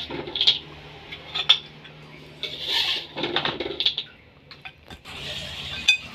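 Metal spatula scraping and knocking against a metal wok while scooping crispy fried anchovies out onto a plate: a string of short scrapes and clinks.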